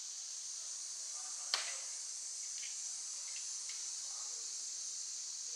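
Steady, high-pitched insect chorus, with one sharp click about a second and a half in and a few faint short chirps after it.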